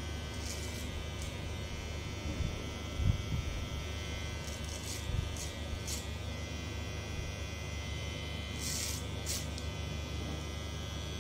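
Cordless electric hair clipper running with a steady buzz as it shaves short hair up the back of the head. A few brief crisp scratches come through as the blades pass through the hair, and there is a soft thump about three seconds in.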